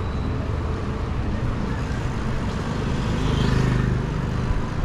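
Wind rushing over the microphone of a camera on a moving bicycle, a steady low rumble. About three seconds in, a motor vehicle's engine hum swells for about a second.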